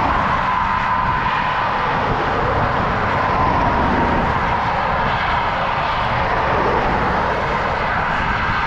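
Steady wind rush on a handlebar-mounted camera's microphone while riding a road bike, mixed with motor traffic passing on the highway alongside. A faint high whine runs through it, drifting slowly lower in pitch.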